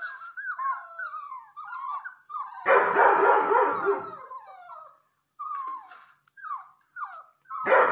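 Young red and white setter howling in a run of short, falling whines and yelps, with a louder, fuller howl about three seconds in and another starting near the end.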